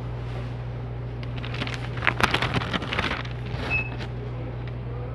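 Paper flyer crinkling and rustling in hand for about two seconds, over a steady low hum. One short high beep comes near the end.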